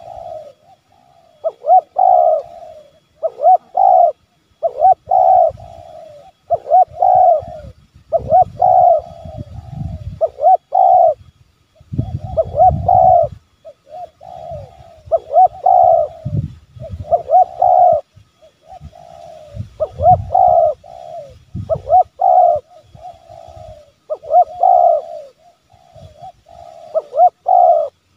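Spotted dove (tekukur) giving its excited 'menekan' challenge call: short cooing phrases repeated every second or two. A low rumble sounds underneath now and then.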